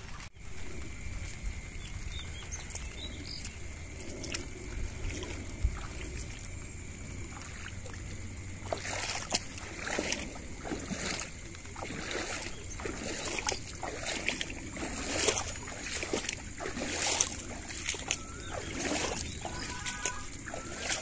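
Muddy floodwater rushing down a channel after heavy rain: a steady rushing noise, with frequent louder splashes from about halfway through.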